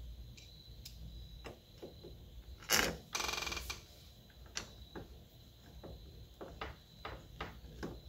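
Hand screwdriver turning the mounting screws of a lever door lockset: scattered light metal clicks and ticks, with one louder rasping scrape about three seconds in. The screws are being driven only part way so that the handle can still be adjusted.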